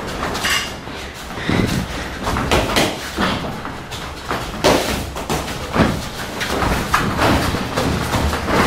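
Boxing gloves landing in irregular thuds during sparring in a ring, some close together and some a second or more apart.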